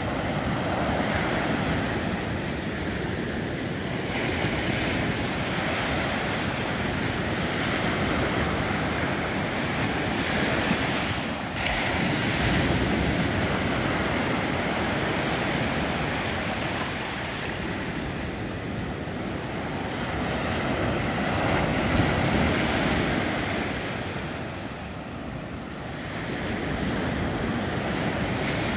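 Ocean surf breaking and washing up a sandy beach, the steady rush swelling and easing as each wave comes in, with wind buffeting the microphone.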